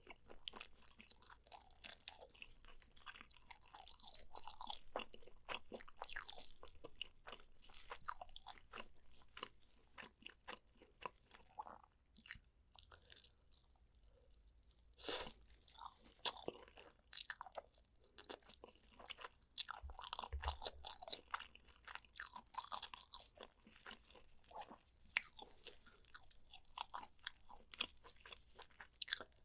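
Close-miked eating of braised pork back ribs: chewing and biting with many sharp smacking clicks and crunches, easing off briefly about twelve seconds in.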